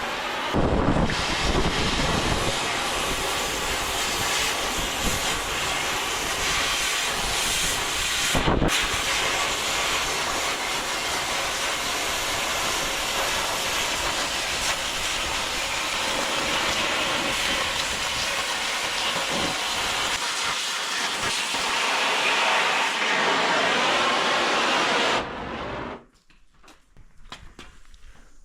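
Cutting torch running steadily as it cuts through the steel plate of the skid steer mount, a loud, even hiss. It breaks off briefly about eight seconds in and cuts off suddenly near the end.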